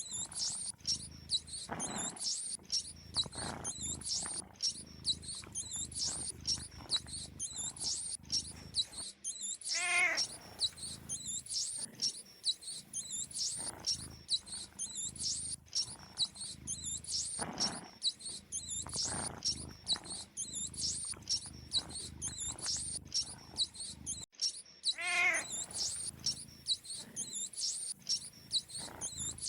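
Mice squeaking: rapid, high-pitched chirps repeating several times a second without a break. Twice, about ten and twenty-five seconds in, a lower wavering call rises over them.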